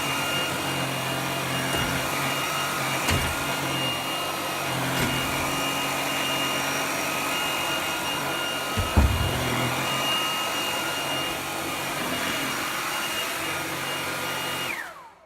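Puppyoo T10 cordless stick vacuum running on its max setting over a rug: a steady high motor whine over the rush of suction, with a couple of short knocks, the loudest about nine seconds in. Near the end the motor is switched off and its whine falls away to silence.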